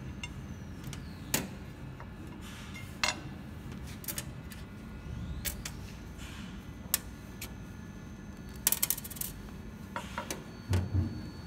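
Steel screws and washers clinking and clicking on the paper cutter's stainless steel table as gloved hands handle them, in scattered sharp metallic clicks with a quick rattle of several clinks about nine seconds in. A couple of dull knocks follow near the end.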